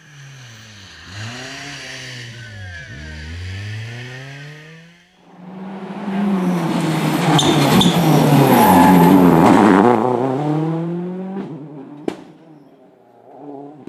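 Rally car engine at stage pace, revving up and dropping back repeatedly through gear changes and lifts. Then a louder, closer pass at high revs with tyre noise, its pitch falling as it goes by. A single sharp crack near the end.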